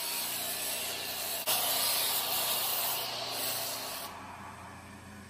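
Pressure washer jet hissing as it sprays down an electric scooter, with a brief break about a second and a half in. The spray noise falls away about four seconds in, leaving a quieter steady hum.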